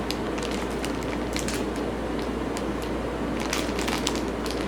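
Soft crackles and crinkles of squishy toys being handled, scattered irregular clicks over a steady background hiss and hum.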